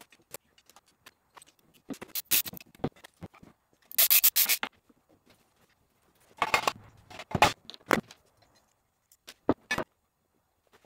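Supercharger and intake parts being handled on a wooden workbench: scattered clicks and knocks with short scrapes, the loudest scrape about four seconds in and two more between six and eight seconds.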